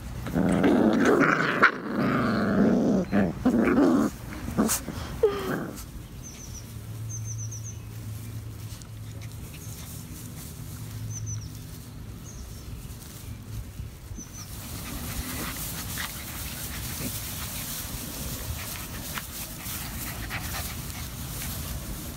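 Puppies growling as they play-fight, loud for the first four to five seconds and then much quieter.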